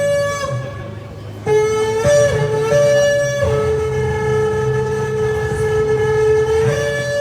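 Shofar blown in long held blasts, the note stepping between a higher and a lower pitch. A higher note breaks off about half a second in. A new lower blast starts about a second and a half in, flicks up briefly, then settles on a low note held for about three seconds before climbing back to the higher note near the end.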